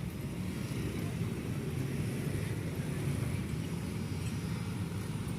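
Steady low rumble of a vehicle, with a fainter hiss above it; no horn sounds.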